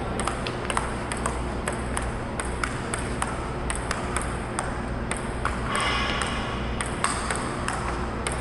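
Table tennis rally: the ping-pong ball clicking off the paddles and table about three times a second, over a steady low hum.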